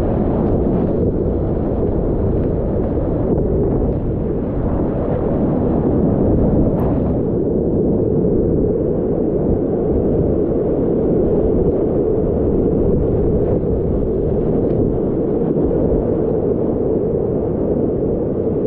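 Whitewater rapids rushing loudly and steadily around a kayak, heard from the boat in the middle of the rapid.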